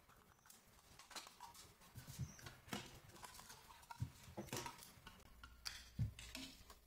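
Light plastic clicks, taps and knocks from a small RC drift car being taken apart by hand, its plastic chassis lifted out of the plastic body shell, with two firmer knocks about four and six seconds in.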